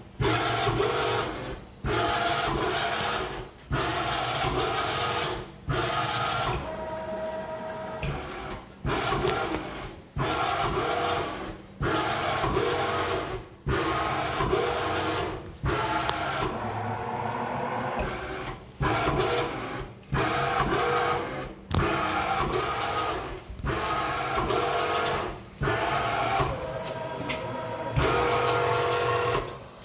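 ProtoTrak Sport CNC mill running a peck-drilling bolt-circle program: the axis servo motors whine in stepped tones and the spindle hums steadily. The cycle repeats about every two seconds, with a short break between cycles.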